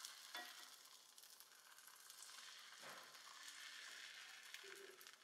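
Faint sizzling of thin rice batter in a hot frying pan as it is spread out with a piece of eggplant peel, with a couple of soft ticks.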